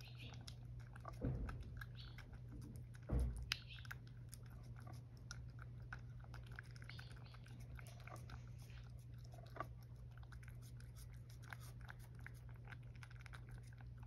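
Cat eating wet food from a tray: a steady run of small wet licking and chewing clicks. There are two soft thumps in the first few seconds.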